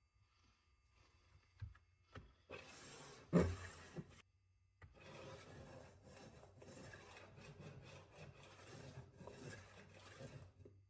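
Scratching of a layout tool drawn across sheet metal while marking out lines, first in a short stretch with a knock about three and a half seconds in, then in a longer steady scratching stretch.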